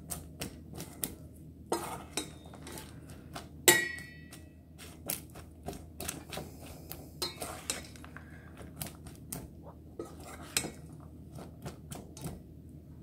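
Metal spoon stirring toffee-coated popcorn in a metal mixing bowl: irregular scrapes and clinks of spoon against bowl. The loudest knock comes a little under four seconds in and leaves a brief metallic ring.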